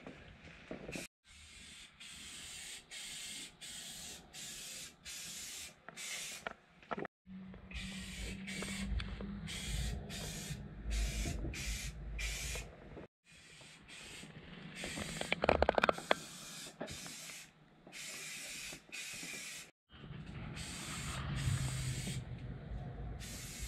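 Aerosol spray can of self-etching primer spraying in a long run of short bursts, each hiss lasting about a second with brief pauses between.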